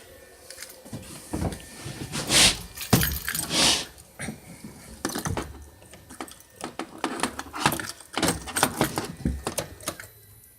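Irregular clicking and jangling handling noises, with two louder rushes of noise about two and a half and three and a half seconds in.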